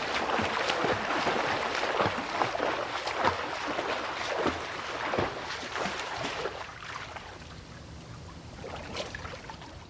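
Water splashing in a quick, irregular run of splashes that fades away over the last few seconds.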